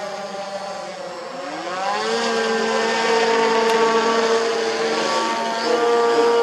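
Electric motors and propellers of an RC VTOL quadplane in flight, a steady pitched whine. About a second and a half in it rises in pitch and gets louder, then holds at the higher note as the plane flies closer overhead.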